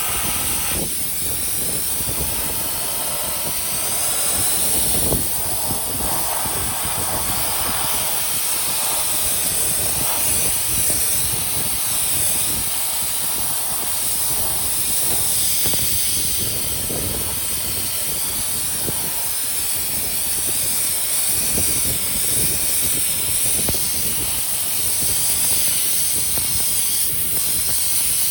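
Cutting torch hissing steadily and loudly, starting abruptly, with a rough uneven rumble under the hiss.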